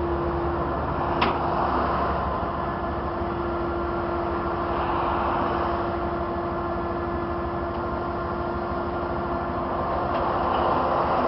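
Heavy truck running steadily, a constant engine hum under mechanical noise, with one sharp click about a second in.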